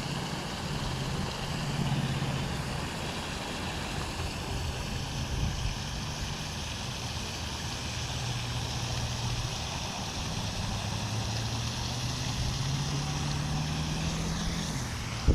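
A motor vehicle's engine running steadily with a low drone whose pitch drifts slowly and rises slightly near the end, over a steady hiss of wind.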